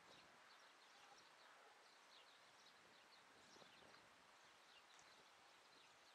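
Near silence outdoors, with faint, scattered birds chirping in the distance.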